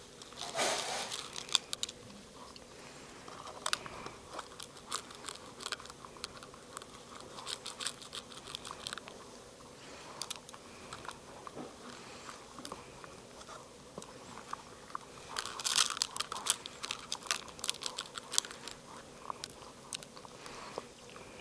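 A small dog eating candy sprinkles out of a drinking glass, licking and chewing with a string of sharp crunches and clicks. The crunching comes thickest about half a second in and again around sixteen seconds.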